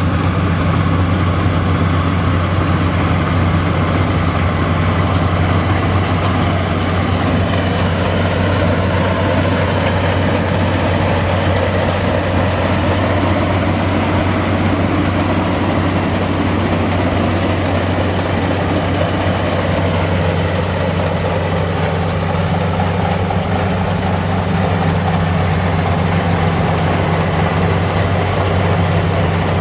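Crown Sumo rice combine harvester running steadily while cutting rice, its engine and machinery giving a constant deep hum.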